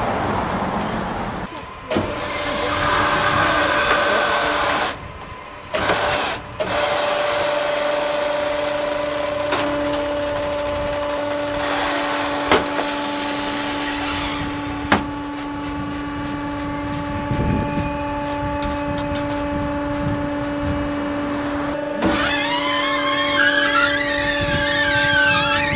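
Tyre baler's hydraulic power unit running with a steady two-tone hum, a couple of sharp clicks midway, and wavering high squeals near the end.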